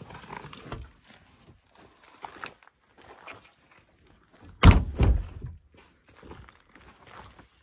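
Car doors being shut: two heavy thuds about half a second apart, a little past the middle, with faint rustling and handling noises around them.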